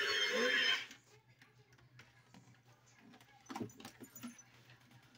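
Toy chainsaw prop's electronic revving sound effect, a loud lo-fi buzz from its small speaker, cutting off abruptly just under a second in. After that come only faint handling clicks and rustles, with a brief low knock a little past halfway.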